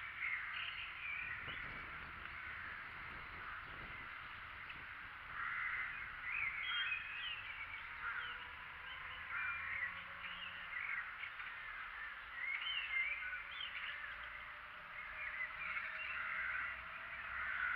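A busy chorus of birds calling, many short quick chirps and squawks overlapping with hardly a pause.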